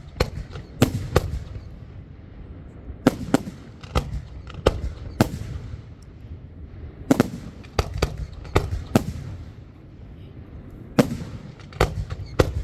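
Fireworks bursting overhead: about a dozen sharp bangs in irregular clusters, some in quick pairs, each trailing off in a low rumble.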